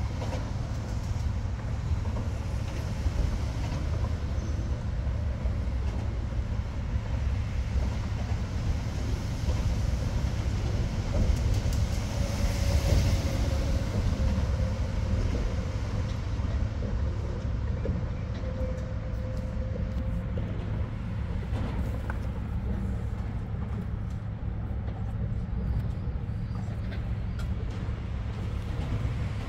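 Steady low rumble of road traffic crossing the bridge overhead, swelling as a vehicle passes louder about twelve seconds in.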